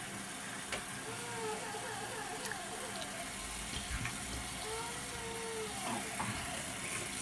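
Tap water running steadily.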